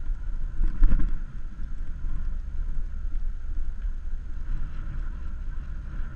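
Low wind rumble and road noise on a handlebar-mounted camera while riding a bicycle along a street, with a brief louder rush about a second in.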